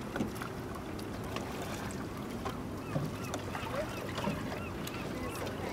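A crew paddling a big traditional canoe: paddles dipping and splashing in calm water, with faint irregular knocks. Many short, high chirping calls sound over it throughout.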